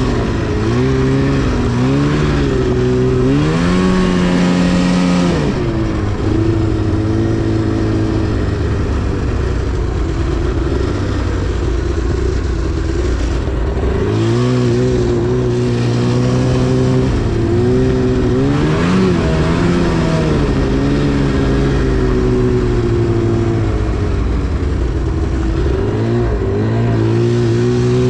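2010 Arctic Cat CFR 1000's two-stroke engine running hard under throttle, its pitch rising and falling several times as the rider opens and eases off the throttle, with a steadier stretch in the middle.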